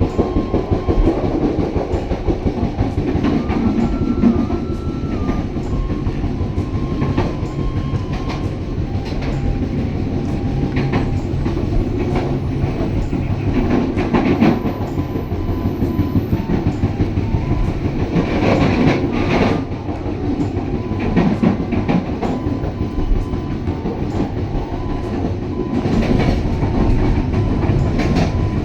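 Pasundan passenger train running along the track: a steady rumble with the clickety-clack of wheels over the rail joints.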